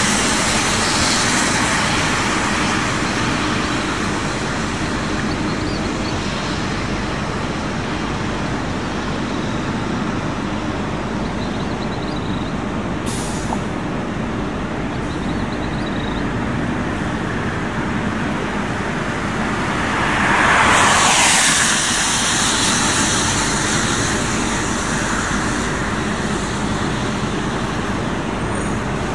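City transit buses running steadily as they pull out of the garage. A little past two-thirds of the way through, a loud burst of air-brake hiss lasts about a second and a half.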